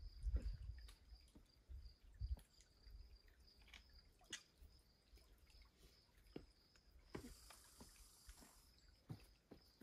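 Near silence: faint outdoor ambience with a steady, faint high-pitched hum. Low wind rumble and a few soft knocks on the microphone come in the first couple of seconds, and a short hiss about seven seconds in.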